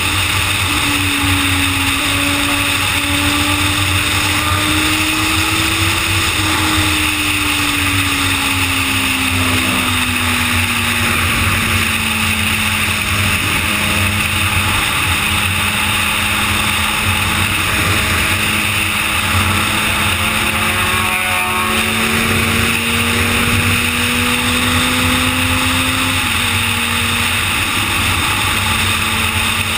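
2011 Suzuki GSX-R's inline-four engine running at highway cruising speed, its pitch slowly sagging and then climbing again before stepping down suddenly near the end, under a constant rush of wind noise.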